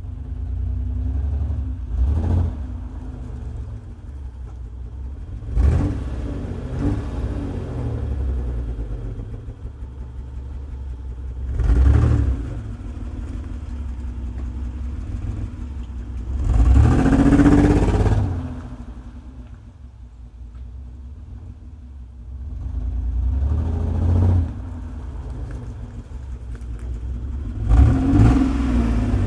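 1995 Mitsubishi 3000GT V6 exhaust idling, with the throttle blipped about six times, each rev rising and falling back. The exhaust has a fluttering note and the idle runs rough, which the owner suspects is a misfire.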